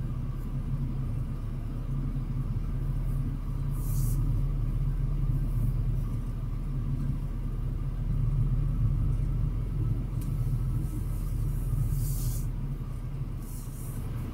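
Semi-truck's diesel engine running with a low, steady rumble, with a few short hisses about four seconds in and twice near the end.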